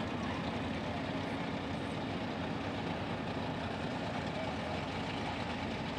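Mud-racing truck engine running steadily at low revs, an even, unchanging hum.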